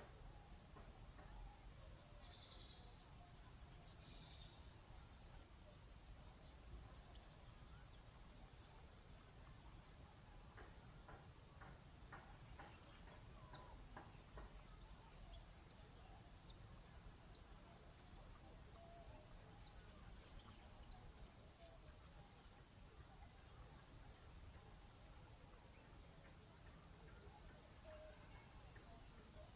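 Faint, steady high-pitched insect chorus, cricket-like, trilling with a regular pulse about twice a second, with scattered short high chirps above it.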